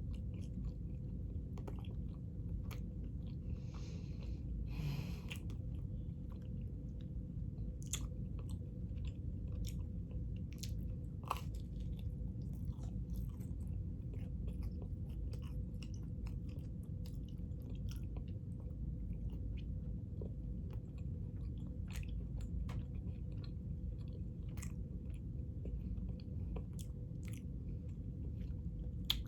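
A person chewing and biting into pizza and chicken wings, with scattered small crisp clicks and wet mouth sounds over a steady low hum.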